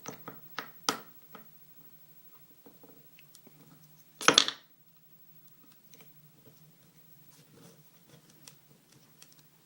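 Small metal clicks and scrapes of a screwdriver prying at the retaining clip on a Kwikset lock cylinder, with one louder scrape lasting about half a second about four seconds in.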